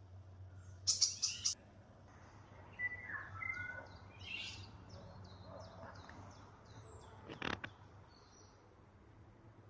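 Small songbirds singing in a spring forest: scattered chirps and short whistled notes, with a quick run of repeated high notes midway. A brief loud harsh noise comes about a second in, and a single sharp knock near the end.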